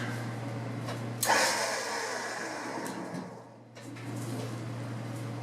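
A lift lowering a fiberglass car body onto a chassis. A rush of mechanical noise starts suddenly about a second in and fades out over about two seconds, over a steady low hum.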